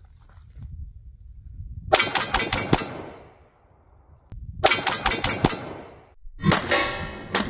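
Rapid 9mm pistol fire from a Glock 17: a quick string of about five shots about two seconds in, then a second quick string of about five shots. Background music starts near the end.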